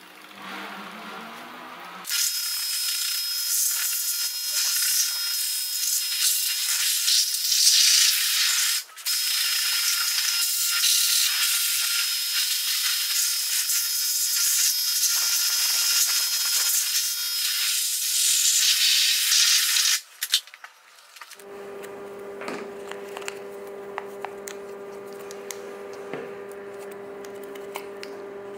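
Loud, high-pitched spraying hiss that starts about two seconds in, breaks off briefly near the nine-second mark and stops around twenty seconds. It is followed by a quieter steady hum with light ticking.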